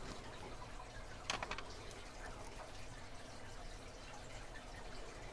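Faint small metallic clicks and taps as the tailpiece and its screw are fitted to the back of a mortise lock cylinder, with a quick cluster of three or four clicks about a second and a half in.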